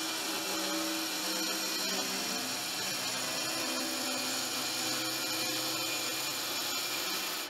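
Plunge track saw running steadily as it cuts through a thick walnut slab along its guide rail, its dust-extraction hose attached. The level drops sharply right at the end.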